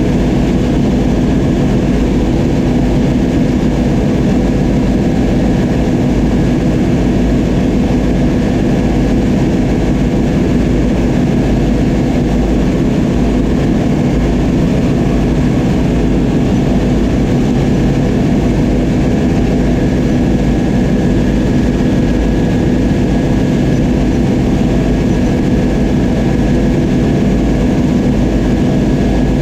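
Oliver 7300 combine running steadily while harvesting wheat: a constant loud engine and machinery drone with a steady hum and a faint high whine, unchanging throughout.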